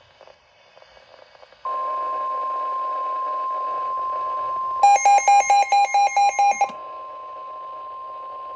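NOAA Weather Radio's steady 1050 Hz warning alarm tone, which comes on about two seconds in and signals that an emergency alert is about to be read. About three seconds later a loud electronic alarm beeps rapidly over it, about nine beeps in two seconds. The tone then carries on more quietly.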